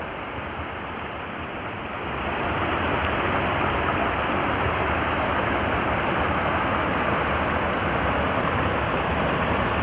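Creek water running over and between boulders, a steady rush that grows louder about two seconds in.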